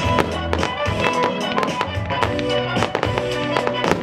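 Music with a steady beat, mixed with frequent sharp cracks and pops from show fireworks crackling overhead.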